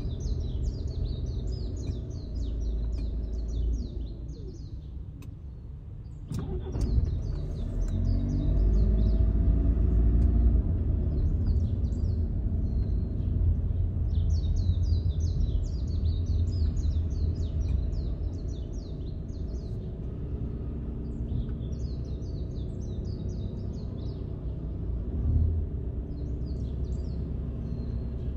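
Small birds chirping in repeated bursts over the low rumble of a car's engine and road noise. A sharp click comes about six seconds in, then the engine note rises as the car pulls away.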